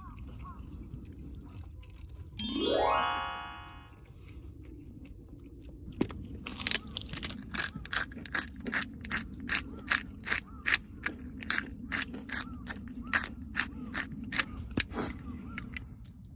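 Close-up chewing of crunchy food, a steady run of crisp crunches about two to three a second through the second half. It is preceded by a short rising tone with a ringing, buzzy quality, like an edited-in sound effect.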